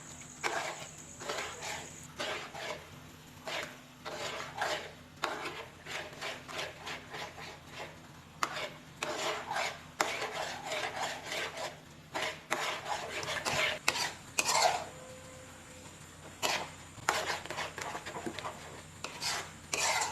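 A cooking utensil scraping and stirring around the bottom of a pan of thickening cornstarch-and-coconut buko pie filling, in uneven strokes about two a second. The stirring is kept up so the setting bottom of the filling doesn't scorch.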